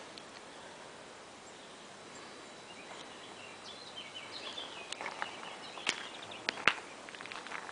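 Outdoor ambience with small birds chirping in a quick run of calls around the middle, then a few sharp ticks and scrapes near the end, the loudest just before it ends.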